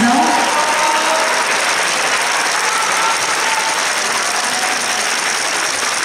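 Audience applauding steadily, with the last of the waltz music dying away right at the start.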